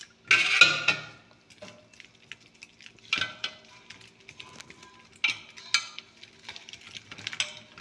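Gram flour (besan) and water being stirred into a paste in a stainless steel bowl: irregular scrapes and clinks against the steel, with a louder burst about half a second in.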